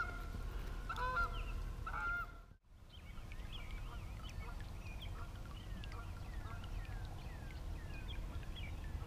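Geese honking a couple of times in the first two seconds; after a brief dropout, many short, high bird calls keep going.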